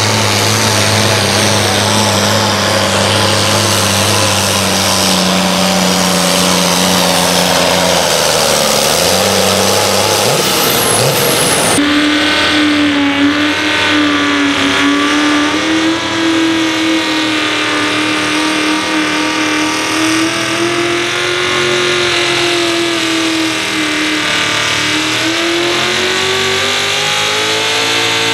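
A John Deere pulling tractor's engine running hard under load, its pitch slowly sagging and then dropping off about ten seconds in. After a sudden change, a Ford pickup with hood exhaust stacks is running hard under load, its engine pitch wavering up and down and rising near the end.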